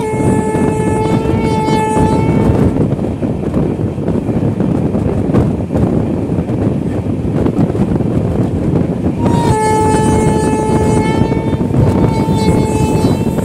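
Horn of an Indian Railways electric locomotive on a moving express train, sounding twice about seven seconds apart, each time for two to four seconds. Under it runs the steady rumble and wind of the running train.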